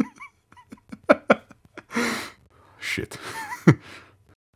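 A person breathing between lines, with a few small mouth clicks in the first second or so, a long breath about two seconds in, and a muttered curse near the end.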